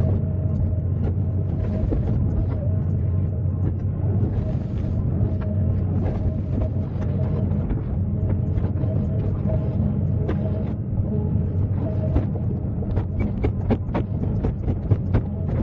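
Excavator diesel engine running steadily, with a series of sharp knocks in the last few seconds.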